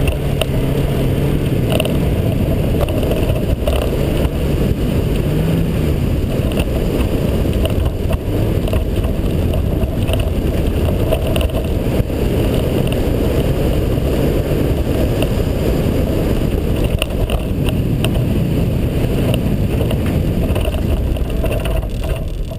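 Mazda Miata's four-cylinder engine running hard under load through a snowy rallycross course, over a steady rush of tyre and snow noise. The engine eases off near the end.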